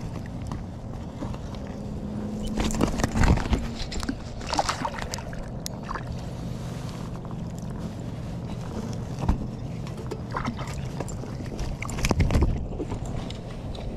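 Handling noise from a freshly caught rainbow trout on a float tube: rustling and knocks of hands, fish and tube fabric, over a steady low hum. The loudest burst, about twelve seconds in, is the trout flopping and splashing in the hand.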